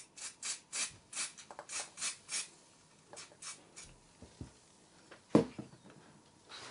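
An aerosol can of foam cleaner sprayed in short hissing bursts, about three a second for the first two seconds or so, then a few more. A single knock about five seconds in is the loudest sound.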